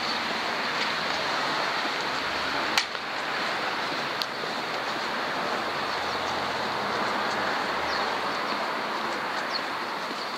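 Steady hiss of street traffic and tyres on a wide city road heard while walking, with a sharp click about three seconds in.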